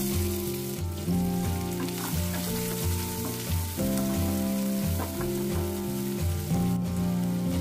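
Chopped onions hitting hot oil in a nonstick kadai: a sizzle that starts suddenly and keeps on as they fry with cashews and are stirred with a wooden spatula. Background music plays underneath.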